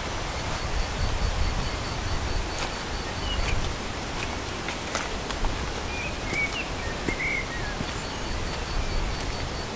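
Forest ambience: a steady rushing hiss with a low rumble underneath. A few short high bird chirps come around the middle and later, a faint rapid high insect pulse is heard early and again near the end, and there are occasional soft crunches of footsteps on wet leaf litter and stones.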